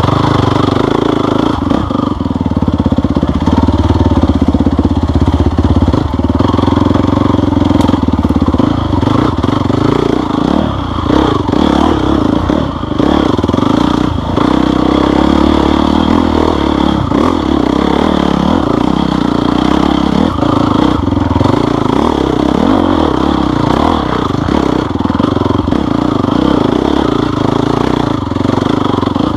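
Off-road vehicle engine running continuously, its revs rising and falling a little, with some clatter over it.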